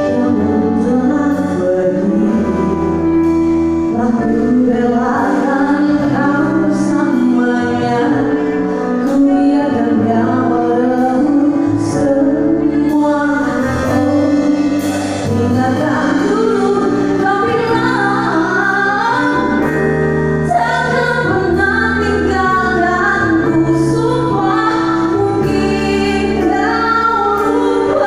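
A live pop band playing, with a woman singing lead over electric bass, drums and keyboards.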